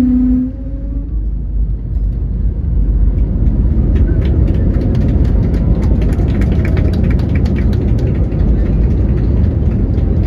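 Airliner cabin noise: a loud, steady, deep rumble of engines and airflow. A tone fades out in the first half second, and from about four seconds in comes a run of short rattling clicks.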